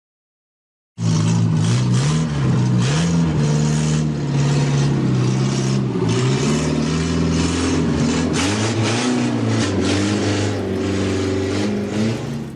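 Small car engine sound effect running and revving, its pitch rising and falling unevenly, starting about a second in and stopping abruptly at the end.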